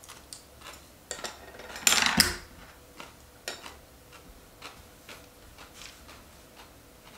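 Eating sounds: a crunchy mouthful of green pepper, loudest in a dense crunch about two seconds in, with scattered small clicks of wooden chopsticks on a ceramic bowl, one sharper click about three and a half seconds in as the chopsticks are set down.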